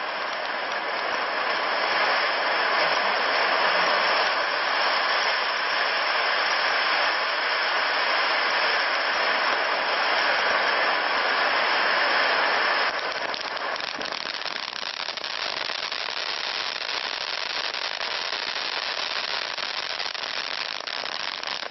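Vuurwerktotaal 'Crackling Fire' firework fountain burning: a dense, steady hissing spray laced with crackle. About 13 seconds in it drops a little in level and turns into a thick crackling of many small pops.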